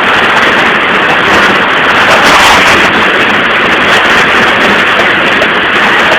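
Heavy rain falling: a loud, steady hiss that swells a little partway through.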